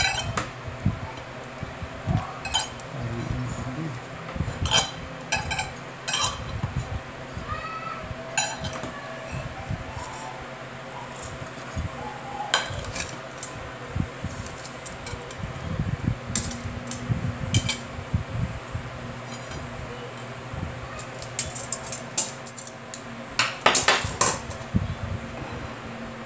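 Metal knife and fork clinking and scraping against a ceramic plate while pieces of bread are cut. The sharp clinks come irregularly, with a quick cluster of them near the end.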